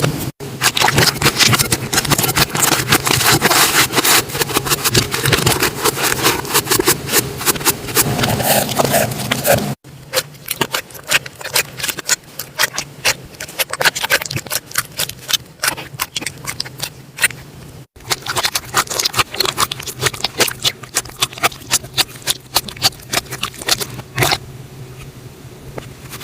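Slime being squished and worked by hand, giving dense, irregular crackling and popping clicks. The sound breaks off abruptly about 10 and 18 seconds in, and it is louder and busier before the first break.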